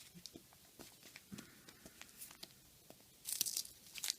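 Old paper trading-card pack being peeled open by hand, the wrapper crinkling and tearing with small clicks, then a louder burst of crinkling near the end.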